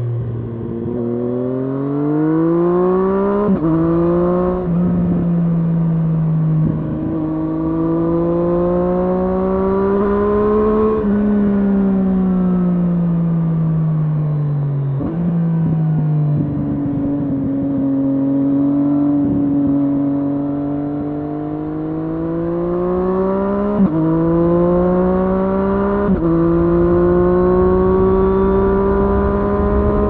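Triumph Street Triple S inline three-cylinder engine through an SC-Project SC1-R slip-on exhaust with its dB killer fitted, heard from the rider's seat on the move. The revs climb and drop with an upshift about three seconds in, then fall away under engine braking. Near the end the engine pulls hard again through two quick upshifts, with a low rumble of wind and road beneath.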